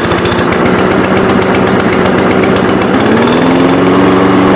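Cobra DG450 135 cc overhead-valve petrol engine of a self-propelled lawnmower, just key-started on choke, running loud and steady at a fast, even firing beat.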